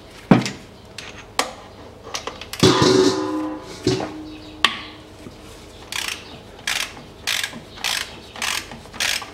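Socket ratchet loosening a transfer case drain plug. There is a sharp click near the start and a metallic clatter a few seconds in, then a regular run of ratcheting strokes, about one every half second or so, as the plug is backed out.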